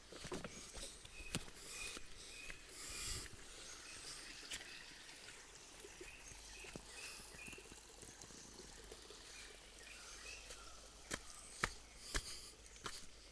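Faint outdoor nature ambience: a soft steady hiss with scattered sharp clicks and short, high repeated chirps, several in the first half.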